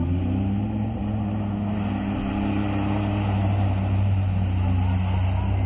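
Engine of an off-road racing vehicle running hard at a steady, held pitch.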